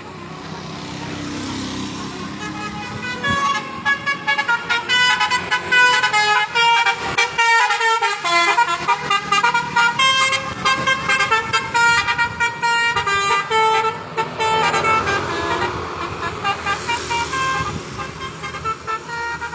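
Indonesian 'telolet Basuri' musical bus horn playing a fast melody of short stepping notes for about ten seconds, over the road noise of a bus passing.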